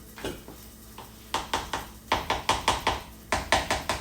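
A kitchen utensil tapping and knocking against a bowl in quick runs of about five strikes a second, after a couple of single taps near the start.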